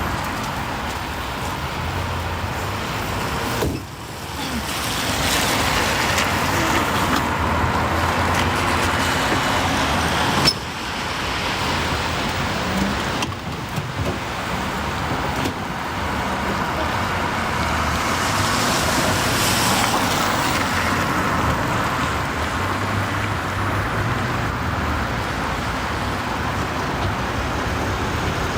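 Steady roadside traffic noise: cars passing with a low engine hum, and one sharp knock about ten seconds in.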